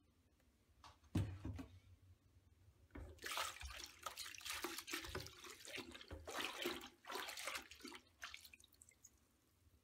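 Hands swishing and scrubbing a plastic squirrel-cage blower fan wheel in soapy water in a plastic bucket: irregular splashing and sloshing from about three seconds in, after a single knock about a second in.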